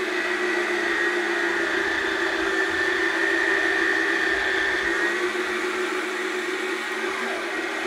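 Yonanas Classic frozen-treat maker's motor running steadily with a whine, its blade shredding frozen strawberries pushed down the chute with the plunger.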